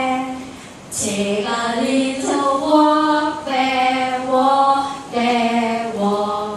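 A group of women singing a short, repeated chant-like refrain together, unaccompanied, with each note held briefly in repeating phrases.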